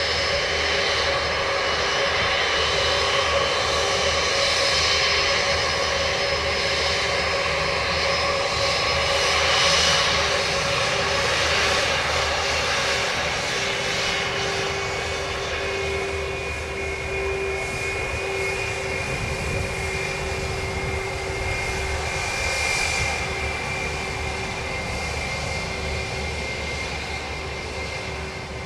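Spirit Airlines Airbus A321's twin jet engines running at taxi power as it lines up for takeoff: a steady whine with a low hum that grows stronger midway and eases toward the end.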